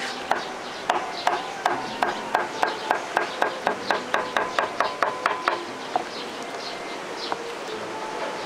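A quick run of regular knocks, about four a second for some five seconds, each with a short ring: a knife chopping on a cutting board.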